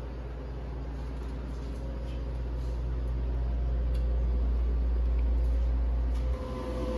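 Car running, a steady low rumble heard from inside the cabin, growing louder over the first five seconds and dropping off suddenly about six seconds in.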